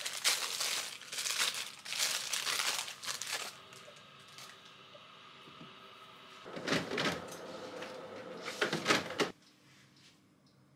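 A paper food wrapper crinkling and rustling as a KFC biscuit is unwrapped, in bursts over the first three seconds and again from about seven to nine seconds. The sound cuts off suddenly near the end.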